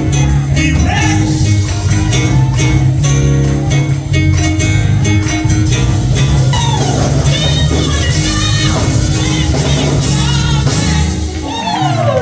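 Church band music with a steady bass line, drums and guitar, and singing voices that come in about halfway through.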